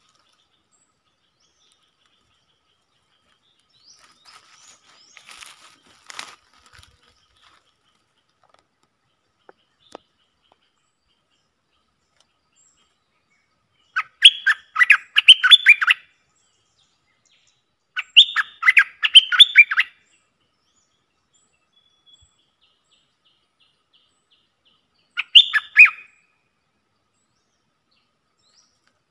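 A bulbul singing three short bursts of rapid chattering notes, each one to two seconds long, the first about halfway in.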